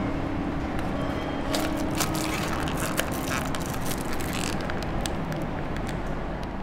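Steady urban background with a low traffic rumble, and scattered small clicks and crackles through the middle.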